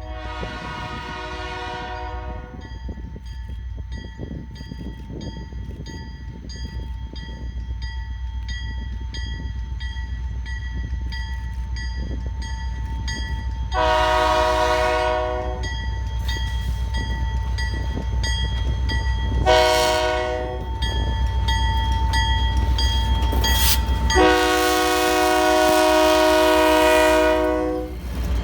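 Canadian Pacific EMD SD40-2 diesel locomotive's horn sounding the grade-crossing signal: long, long, short, long. It plays over the steady low rumble of the locomotive.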